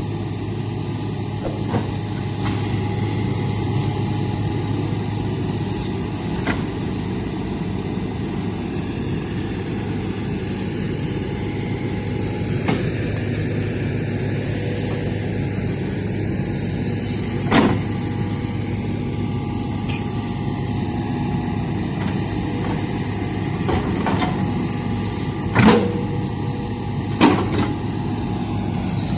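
Hitachi hydraulic excavator's diesel engine running steadily under work. There are three sharp knocks, one past the middle and two louder ones near the end.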